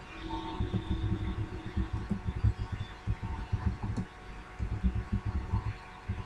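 Computer keyboard typing picked up by the microphone as dull, irregular low thuds, several a second, over a faint steady hum.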